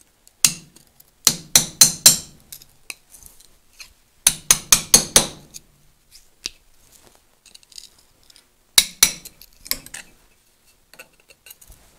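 A hammer tapping a thin steel punch or pry tool against the steel dust cover of an Adwest power steering box's input shaft seal, to drive it off. Sharp metallic taps with a ringing edge come in quick runs of four or five, with short pauses between, plus a few single taps.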